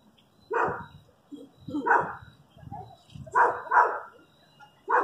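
A dog barking in single barks about a second apart, the last two in quick succession.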